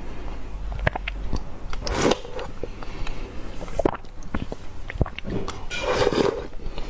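Chunks of bottle-frozen ice being bitten and chewed close up: a string of sharp cracks, with louder crunching bites about two seconds in and again near the end.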